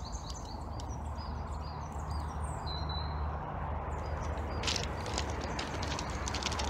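Small birds chirping, a run of short high chirps in the first half, over a low steady rumble. Footsteps crunch through dry leaves and grass from past the middle.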